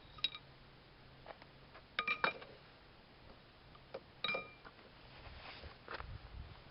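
Metal parts of a cast-iron bench vise clinking against each other: short ringing clinks, one at the start, a quick cluster of about three around two seconds in and another about four seconds in, with a few fainter knocks between them.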